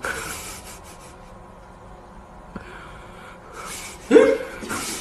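Two short, breathy, gasp-like vocal bursts: one at the start and a louder one about four seconds in that opens with a brief voiced sound, with a faint click in between.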